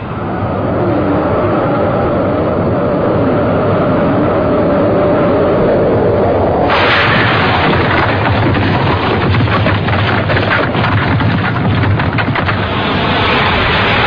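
Cartoon destruction sound effects: a continuous loud rumble that is muffled at first and turns harsher and hissier about seven seconds in, with a run of crackling crashes from about nine to twelve seconds.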